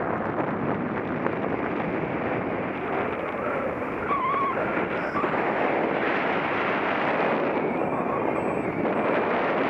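Steady rushing wind buffeting the microphone of a camera carried on a paraglider in flight.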